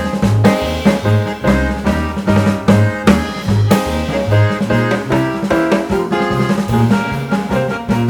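Background music with a steady drum-kit beat, bass drum and snare, under pitched instruments.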